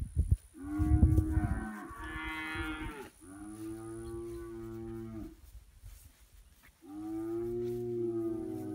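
Cattle mooing: a series of long, drawn-out lowing calls with short pauses between them. The first call is the loudest.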